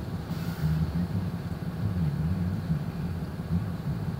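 Steady low rumble of a truck engine idling, heard from inside the cab.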